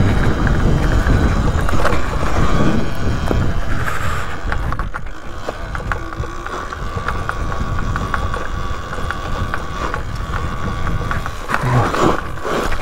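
Talaria Sting R MX4 electric dirt bike riding up a steep dirt trail, its motor giving a steady whine. The tyres and drivetrain clatter over the rough ground in many short knocks, and wind rumbles on the microphone.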